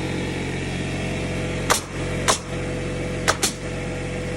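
An air compressor runs with a steady droning hum. Over it, a pneumatic nail gun fires four sharp shots: one about two seconds in, another half a second later, then two in quick succession near the end.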